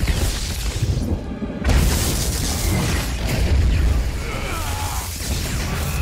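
Film soundtrack mix of a dramatic orchestral score over crackling lightning strikes and booms. The high end briefly drops away about a second in, then the mix comes back louder just under two seconds in.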